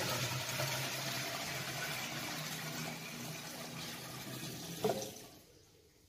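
Milk pouring in a thick stream from a plastic can into an aluminium milk churn, a steady splashing fill that trails off and stops about five seconds in as the can runs empty.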